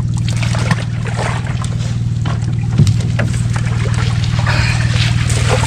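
Small outrigger boat's engine idling steadily, with a few short knocks on top, the loudest a little under three seconds in.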